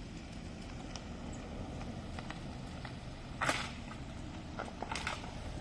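Steady rain falling, with a few short sharp knocks or steps about three and a half and five seconds in.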